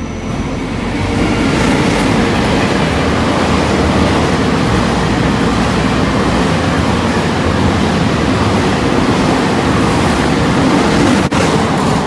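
Taiwan Railways E1000 push-pull Tze-Chiang express running through a station at high speed: a loud, steady rush of wheel and air noise that builds over the first second. Near the end it briefly cuts out.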